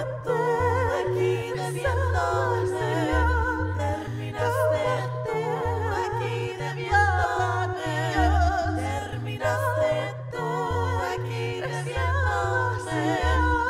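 A woman singing with heavy vibrato into a microphone, held notes and wordless lines, over a backing track with a bass line that steps between notes.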